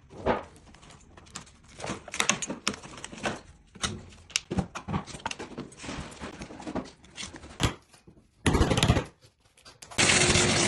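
Loose pieces of a parquet wear layer being pried and scraped out by hand, with a run of irregular knocks, clicks and scraping. Near the end a vacuum hose sucks up the debris in two short bursts of steady noise.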